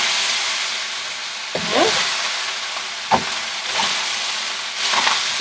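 Soy-sauced rice sizzling as it is stir-fried in a very hot nonstick skillet, with a spatula scraping and knocking against the pan a few times.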